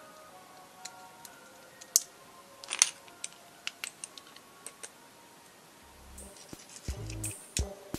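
Scattered small metallic clicks and taps of parts and tools being fitted on a moped's variator assembly, the sharpest about two and three seconds in. Faint background music plays under them, and music with a low beat comes in about six seconds in.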